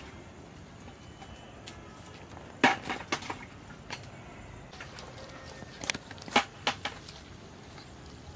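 A few sharp clicks and knocks from a bamboo fishing rod and its line being handled: one cluster about two and a half seconds in and another, the loudest, a little after six seconds.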